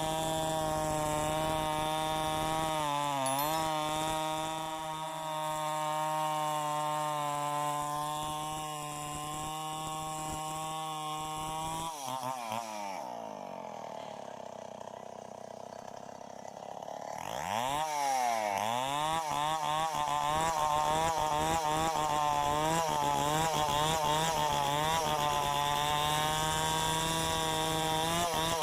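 Tecomec two-stroke chainsaw running at high speed while milling wood. Its pitch dips briefly about three seconds in, then drops sharply to a slower, quieter run for about five seconds. It revs back up and runs on with a wavering pitch as the chain works through the wood.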